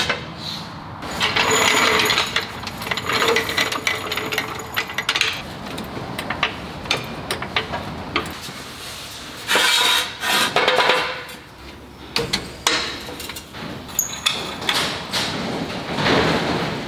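Metal clanking and knocking of shop tool work: a steel Pittsburgh floor jack rolled under the truck's rear axle and set in place, then hand tools knocking at a rear wheel's lug nuts, with bursts of sharp clicks.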